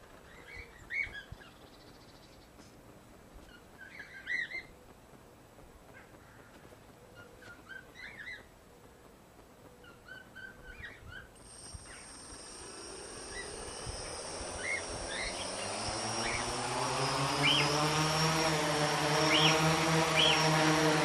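Birds chirp now and then throughout. About halfway through a high whine starts, then the tricopter's three electric motors and propellers spin up, rising in pitch and growing louder, and run steadily near the end.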